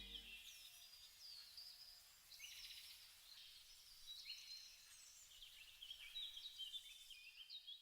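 Faint birdsong: many short chirps and falling whistles from several small birds. The tail of soft background music dies away in the first half second.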